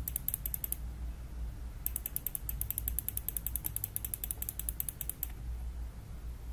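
Computer mouse scroll wheel clicking through its notches in fast, even runs of about ten clicks a second. One run ends within the first second and a longer one starts about two seconds in and stops near the five-second mark.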